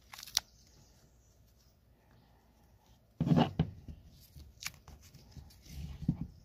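Squirrel tree steps being threaded onto a nylon webbing strap by hand: light clicks and rustles of the strap and steps, with a louder knock about three seconds in.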